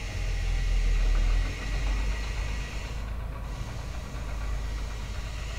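Forklift engine running steadily, holding the hydrostatic pump while it is lowered into place, louder for about a second near the start. A thin steady whine sits above the engine.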